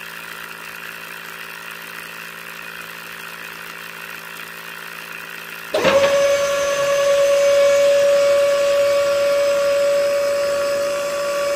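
Small DC hobby motors running on a homemade toy drilling rig: first a steady low hum, then about halfway through a louder motor starts with a sudden high whine that settles into a steady tone.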